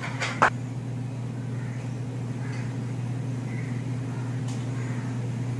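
A steady low hum throughout, with one sharp click about half a second in.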